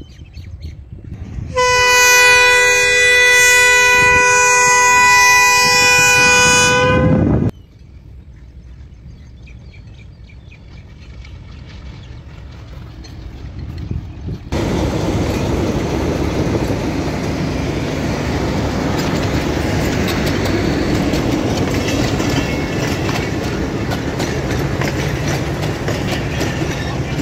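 Diesel locomotive horn sounding one loud, steady chord for about six seconds, then the engine running as the train approaches. About halfway through, passenger coaches start rolling past close by, with a steady rumble and the clatter of wheels over the rails.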